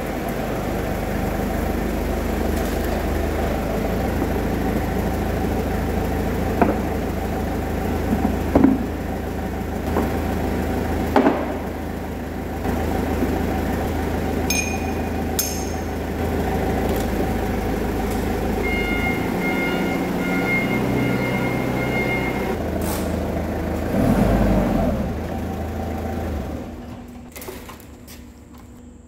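Forklift engine running steadily, with a few sharp metal clunks as heavy steel cylinder parts are set down on a pallet.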